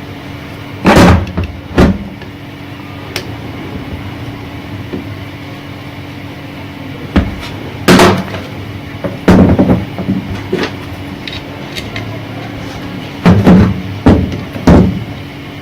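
Sharp knocks and clatters of metal exhaust-fan motor parts being handled and tapped while the nut is refitted during reassembly, in irregular clusters, over a steady low hum.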